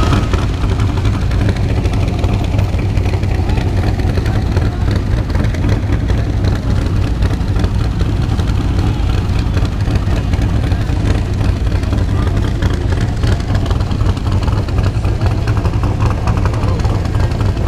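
V8 engine of a black C2 Corvette Sting Ray coupe running steadily as the car creeps along at walking pace.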